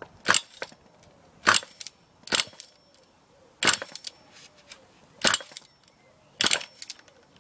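Ansmann BigBlock .28 nitro engine popping in short, sharp, unevenly spaced bursts, about one a second, as it fires on a start attempt but fails to keep running. The engine is not liking the mixture, just richened by a quarter turn.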